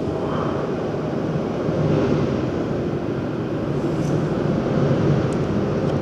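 Steady low rumble of outdoor background noise, with no clear single source standing out.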